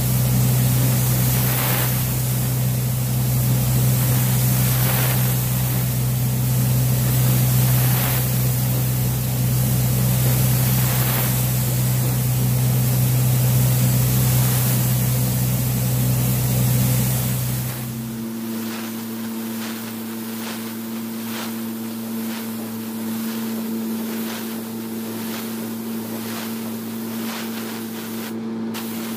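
Compressed air hissing from a paint spray gun over a steady machine hum. About 18 seconds in, the hum shifts to a higher pitch and everything gets somewhat quieter.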